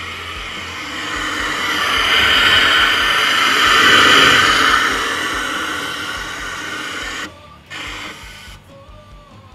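Air-powered sandblaster gun used as a pressure washer, spraying garden-hose water in a compressed-air jet: a steady hiss of air and water spray that swells to its loudest about four seconds in. It cuts off suddenly about seven seconds in, gives one short burst, then stops.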